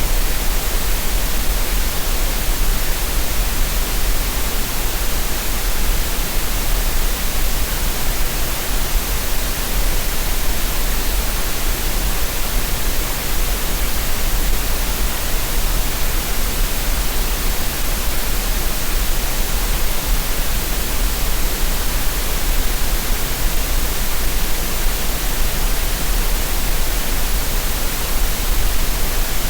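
Synthesized green noise: a steady, unchanging hiss with a deep rumble underneath, of the kind played to mask tinnitus and aid relaxation.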